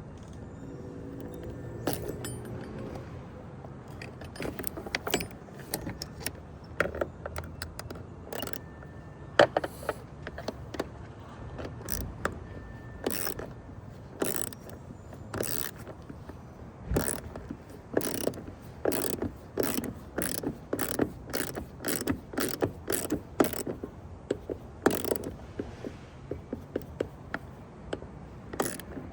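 Hand ratchet wrench clicking as bolts are tightened, in scattered strokes at first and then a steady run of about two to three strokes a second through the second half.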